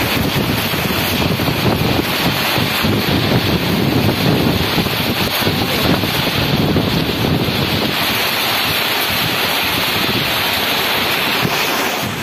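Gusty storm wind buffeting the microphone, over choppy, wind-driven water slapping against the bank.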